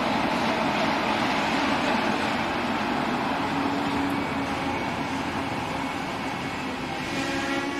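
Running noise of a moving passenger train heard from on board: a steady rush and rumble. A low steady hum joins about halfway, and several higher steady tones come in near the end.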